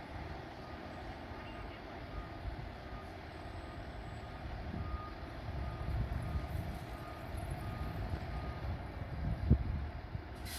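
Fire truck backing up, its reverse alarm beeping about twice a second over the low rumble of its engine. The beeping stops near the end, and a short loud thump follows about a second before the end.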